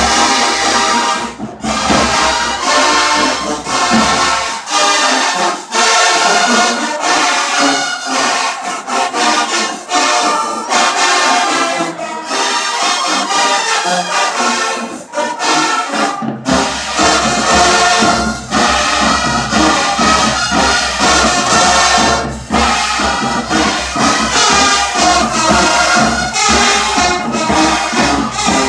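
College marching band playing loudly, led by its brass: trumpets, trombones and low horns over drums. The deep bass drops out about four seconds in and comes back in a little past the halfway point.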